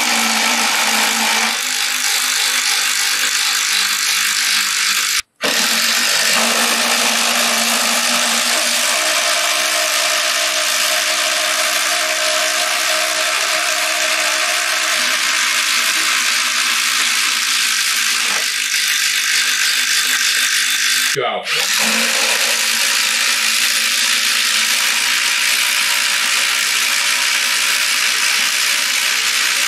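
Two cordless impact drivers, a Ryobi 3-speed and a HART, hammering at once as they drive fasteners into lumber: a continuous loud rattling buzz. It is broken by two brief gaps, about five seconds in and about twenty-one seconds in.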